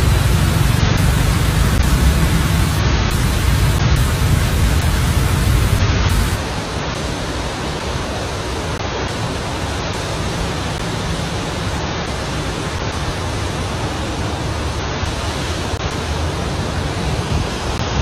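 Fountain jets spraying and splashing into their basin: a steady rushing hiss with a low rumble, dropping to a quieter, thinner hiss about six seconds in.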